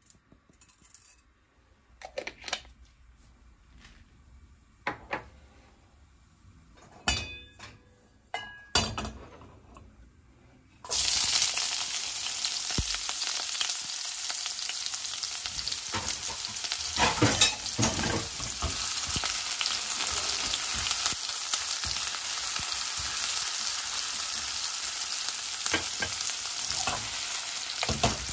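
Chopped onion going into hot oil in a wok and sizzling, the frying starting suddenly about a third of the way in and running loud and steady, with the odd crackle and clink of stirring. Before it, only a few light taps and clinks.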